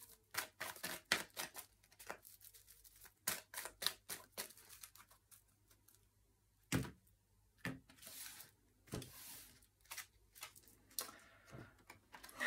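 A deck of tarot cards being handled and cut by hand: a quick run of card snaps and clicks for the first few seconds, then sparser handling sounds with a few single knocks, the loudest about seven seconds in.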